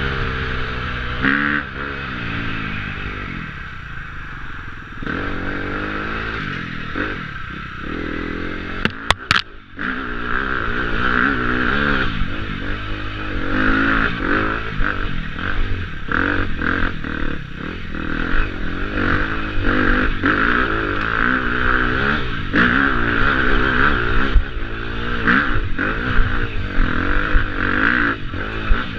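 KTM 250 EXC-F enduro bike's four-stroke single-cylinder engine revving up and down under throttle, with knocks and clatter as it rides over rough, rocky ground. The sharpest knocks come about nine seconds in.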